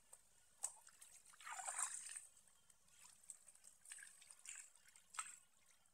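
Faint splashing and trickling of shallow water stirred by a person wading and feeling through it by hand, with a louder splash about one and a half seconds in and a few small splashes after.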